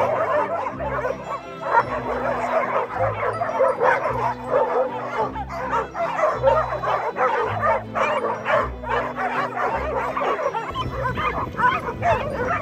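A big pack of dogs barking and yipping excitedly all at once as they chase a swung lure, with background music and a steady low beat underneath.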